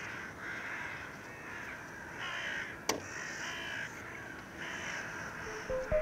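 Crows cawing over and over in harsh, repeated calls, with a single sharp click about three seconds in. Music with a bass line and melody comes in near the end.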